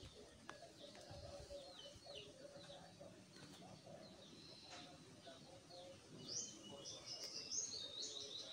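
Faint birdsong in the background: many short, high, falling chirps, busier and louder near the end.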